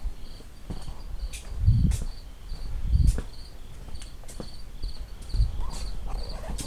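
A cricket chirping steadily, about two to three short high chirps a second, with a few low thumps and sharp clicks, the loudest thumps about two and three seconds in.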